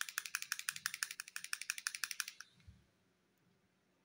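Touch-up paint pen being shaken hard, the mixing ball inside rattling in quick, even clicks about ten times a second. The rattling stops about two and a half seconds in, followed by a small knock.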